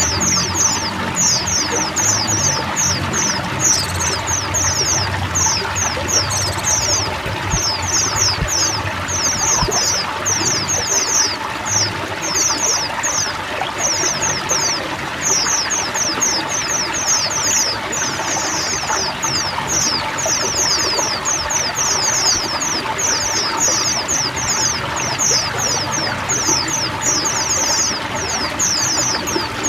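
A flock of white-eyes chirping together in a dense, unbroken chorus of quick high chirps, each falling in pitch, over the steady rush of running water.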